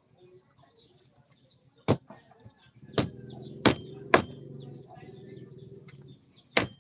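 Five sharp, hard knocks at uneven spacing: a knife chopping at something hard held in the hand. Small birds chirp in the background.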